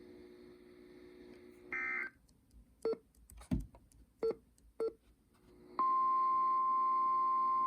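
NOAA Weather Radio 1050 Hz Warning Alarm Tone: after a few seconds of faint hiss with a short tone burst and a few brief blips, a loud, steady single tone starts about six seconds in and holds. It marks the start of a new urgent alert, here a high wind statement.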